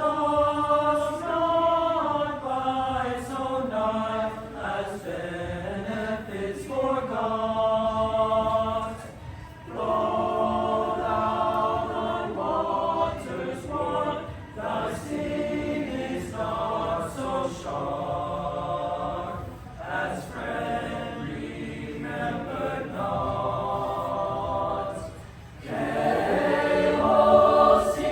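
A choir singing a slow piece in sustained phrases with short breaks between them, swelling louder near the end.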